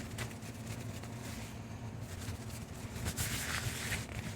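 Quiet handling noise: soft rustling and rubbing with a few light clicks, louder about three seconds in, over a low steady hum.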